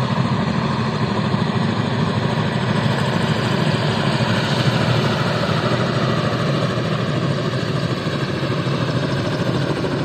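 Firefighting helicopter running steadily overhead: a loud, continuous rumble of rotor and turbine with a fast, even chop from the blades.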